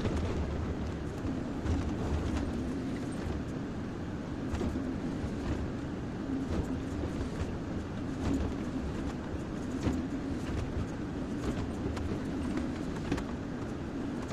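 Kobelco SK-140XM hydraulic excavator's diesel engine running steadily while it digs and loads soil, with scattered sharp clanks and knocks throughout.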